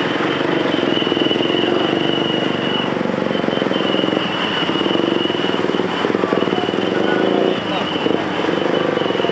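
Many motorcycle engines and an auto-rickshaw engine idling and revving in a dense crowd of traffic at close range, a steady mass of engine noise with a thin high-pitched whine behind it.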